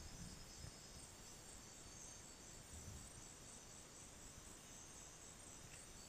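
Faint, steady high-pitched chorus of night insects, several even trilling tones layered together.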